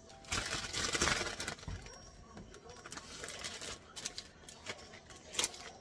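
Thin plastic zipper-top bag crinkling and rustling as a ball of cookie dough is pushed into it. There is a loud rustle about a second in, then scattered crackles and sharp clicks of the plastic.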